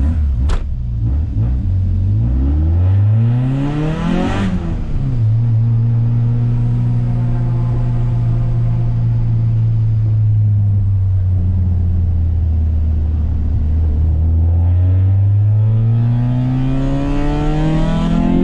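Small car's petrol engine heard from inside the cabin, pulling hard with the revs climbing, then dropping sharply at a gear change about four and a half seconds in. The engine then runs steadily and eases slightly before climbing again under acceleration near the end. A sharp click sounds just after the start.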